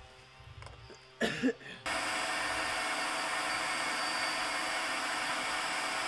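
Power drill running steadily, drilling a hole up through the underside of a school bus to pass wiring, starting suddenly about two seconds in. A few short knocks and handling noises come just before it.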